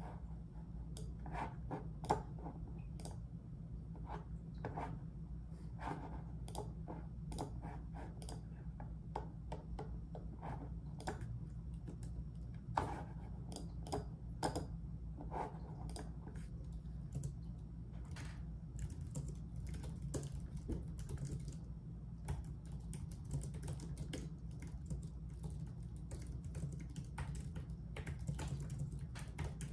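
Typing on a computer keyboard: irregular runs of key clicks with a few louder taps, over a steady low hum.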